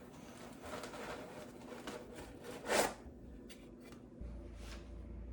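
Rustling and sliding of packaging as parts are handled and unpacked, with one louder swish nearly three seconds in. A low hum starts about four seconds in.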